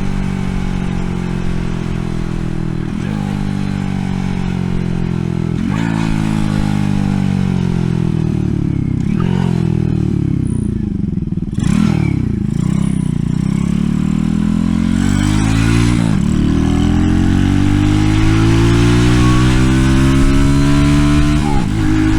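Mini bike's small single-cylinder four-stroke engine running through a stainless steel side-exit exhaust while riding. The revs climb and drop sharply with two upshifts in the first six seconds, then fall off steadily as the bike slows, and climb again through two more gear changes.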